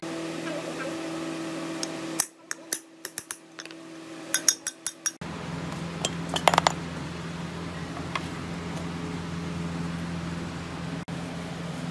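Sharp metallic clinks and taps of steel tools and parts against a generator's cast aluminium end housing as its ball bearing is worked out. There is a quick run of taps between about two and five seconds in, and a short ringing clink a little after six seconds, over a steady low hum.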